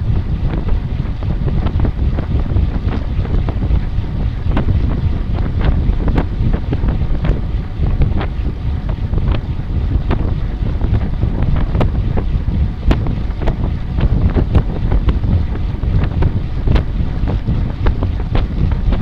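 Wind buffeting the microphone: a loud, steady low rumble with frequent short clicks and knocks.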